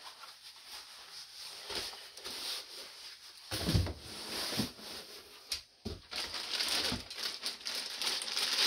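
Rustling and crinkling of a jacket and its packaging being handled and folded, with a couple of soft knocks, the louder one a little under four seconds in.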